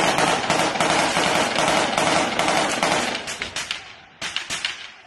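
Sustained automatic gunfire: rapid shots overlapping into a continuous rattle that thins out and stops about four seconds in, then one short final burst.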